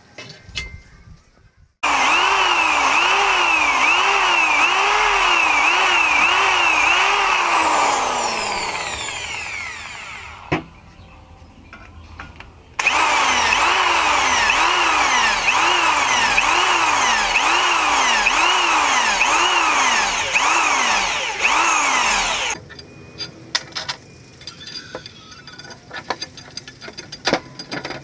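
Electric drill boring through a steel bar clamped in a vise, in two long runs. The motor's pitch swings up and down about every half second as the bit bites. The first run winds down with a falling whine, the second stops abruptly, and light metal clinks follow.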